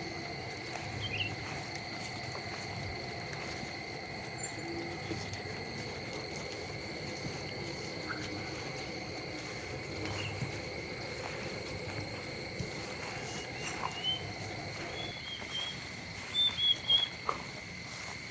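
Steady high insect trill throughout, with a few short bird chirps late on, the loudest near the end.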